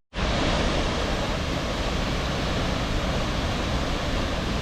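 Steady rush of fast-falling water from a river waterfall. It drops out for a split second at the very start.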